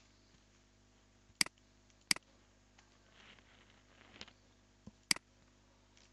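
Computer mouse clicking three times, each click a sharp double tick of press and release, with a faint rustle between the second and third clicks.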